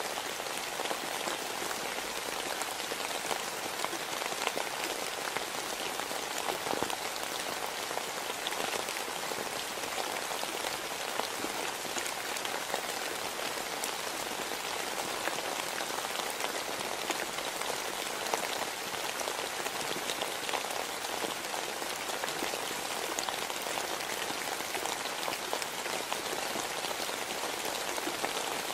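Steady rain falling, an even hiss with many small drop ticks scattered through it.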